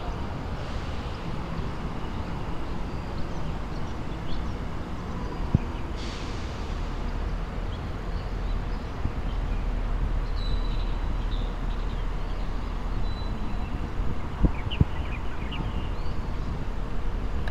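Steady outdoor city background noise, a low rumble of distant traffic, with a few sharp clicks about a third of the way in and again near the end, and some faint high chirps in the second half.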